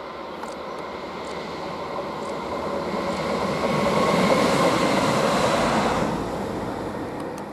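Two coupled DB class 185 (Bombardier Traxx) electric locomotives running past on the main line: the noise of wheels on rail, with a faint steady whine, builds up, is loudest about halfway through, then fades away.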